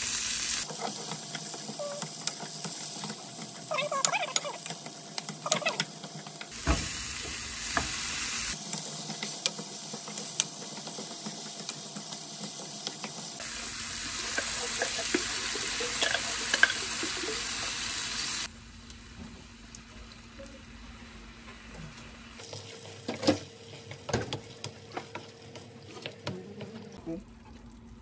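Onions, garlic and sausages frying with a steady sizzle in a nonstick frying pan, stirred with a wooden spoon that scrapes and knocks against the pan. The sizzle drops to a quieter level for the last third, with the spoon's knocks standing out.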